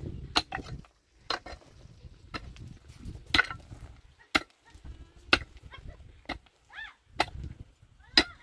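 Sharp blows struck at a steady pace of about one a second, nine in all.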